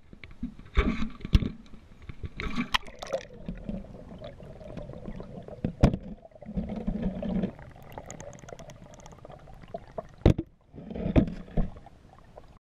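Water splashing and gurgling around a wire-mesh minnow trap as it goes under in a creek, heard from a camera inside the trap, so the sound is partly underwater. Several sharp knocks sound through it, the loudest about six and ten seconds in.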